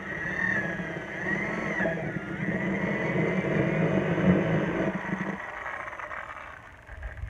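An engine running, with a low hum and a wavering, gliding pitch, building up and then dropping away about five and a half seconds in.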